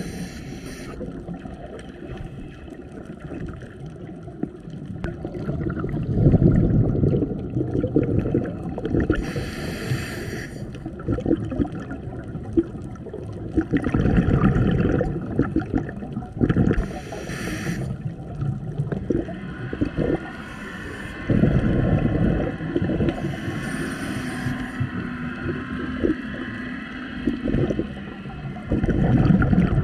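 Scuba diver breathing through a regulator underwater. Short hissing inhalations alternate with low rumbling bursts of exhaled bubbles, about four breaths in all.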